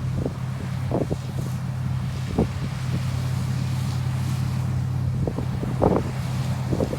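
Case IH 1660 combine harvester running steadily with a low engine drone, with wind buffeting the microphone now and then.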